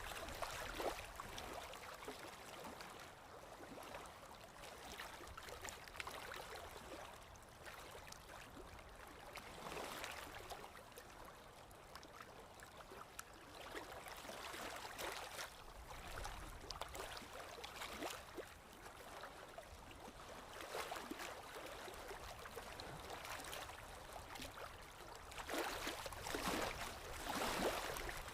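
Paintbrush working acrylic paint on a canvas: scratchy swishes and scrubbing in irregular bursts, with a few light taps, louder near the end.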